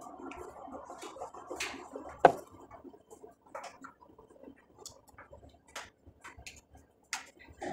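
Blue plastic fittings of a metal-tube clothes drying rack clicking and knocking as they are pushed onto the frame, with a clattering start and one sharp knock a little over two seconds in.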